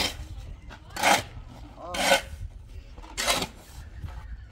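A steel shovel scraping into a heap of sand on hard ground, four scooping strokes about a second apart.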